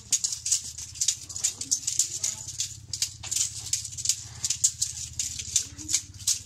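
Rhythmic rattling of decorated dance sticks being shaken and swung, about three sharp rattles a second, over a steady low hum.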